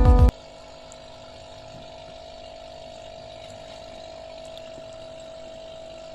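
Background music cuts off abruptly a moment in, leaving a steady hum with one constant tone over a low hiss.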